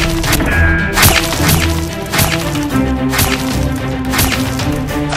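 Action background music with held notes over a bass line, punctuated by repeated sharp percussive hits.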